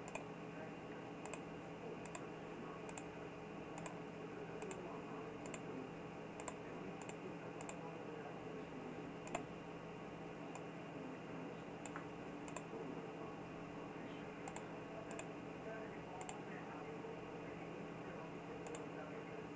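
Computer mouse clicking, short sharp clicks about once or twice a second with a pause midway, over a steady electrical hum and a thin high-pitched whine.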